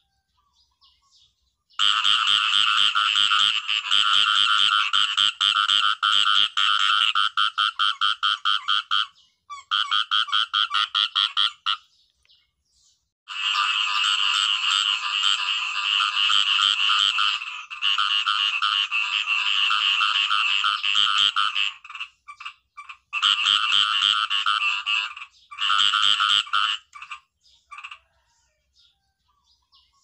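Khiat i-mo frogs calling: long bouts of rapid, pulsing croaks lasting several seconds each, broken by short pauses.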